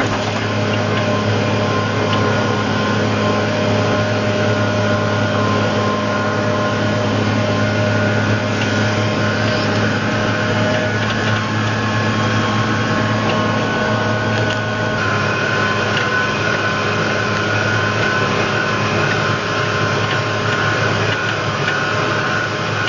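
Case IH MX270 tractor's six-cylinder diesel running steadily under way, a constant low drone with a steady whine over it. The pitch mix shifts slightly about fifteen seconds in.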